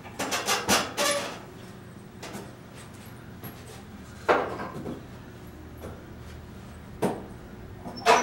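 Metal clanks and rattles from a power-rod home gym's cables, pulleys and clip-on handles being worked and handled: a rattling cluster in the first second, then single clanks about four, seven and eight seconds in, the last the loudest.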